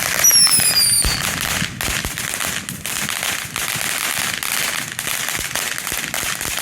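Fireworks going off in a dense, continuous crackle of rapid pops, with a falling whistle in the first second.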